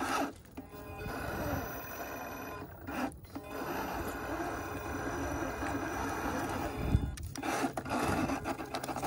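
RC rock crawler's electric motor and geared drivetrain whining steadily as it climbs a rock crack. The whine cuts out briefly twice, about three seconds in and again around seven seconds, with a low knock of the truck against the rock at the second pause.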